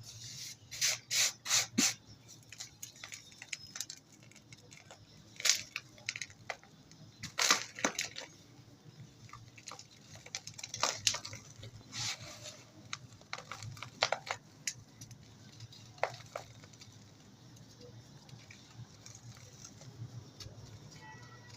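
Dry dirt lumps crumbling and crunching. It starts with a quick run of crunches, goes on with scattered sharp cracks and gritty rubbing, and fades to faint grit near the end.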